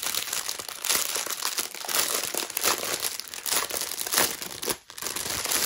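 Clear plastic packaging of bagged diamond-painting drills crinkling as it is handled and turned over in the hands, with a brief break near the end.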